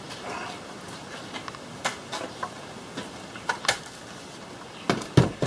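Scattered clicks and knocks of an old Wright gas-powered reciprocating saw being lifted and turned over on a wooden workbench. A heavier thump about five seconds in as it is set back down.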